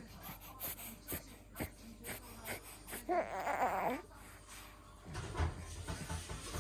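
A three-month-old baby fussing: one short breathy cry lasting about a second, about three seconds in, among small clicks and rustles.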